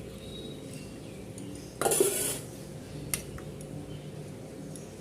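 Tea being strained from the pan into a cup: a short clatter of the strainer and pan about two seconds in, then a single small click about a second later, over a low steady hum.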